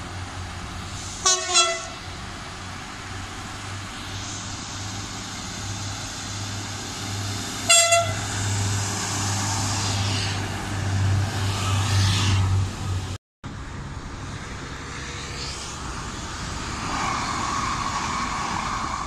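Passenger train horn sounding two short blasts, about a second in and again about six seconds later, as the train approaches. The train then rolls past close by with a steady low engine hum and wheel noise, and a second train runs by after a brief break in the sound.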